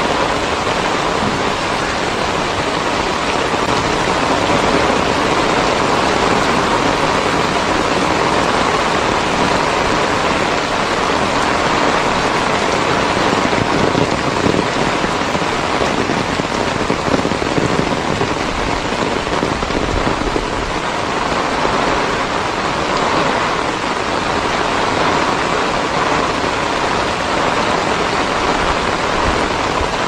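Heavy rain falling steadily on a flooded road, a dense even hiss of drops on standing water.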